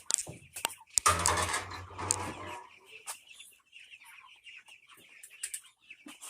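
Game fowl clucking, in short high calls that carry on through the second half. A louder rush of noise about a second in lasts around a second and a half.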